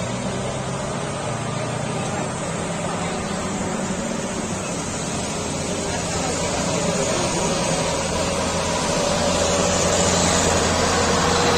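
Mercedes-Benz coach's diesel engine working hard as the bus climbs a steep hairpin, a steady low engine drone that grows louder near the end as the bus comes close. Lighter motorcycle engines pass in the background.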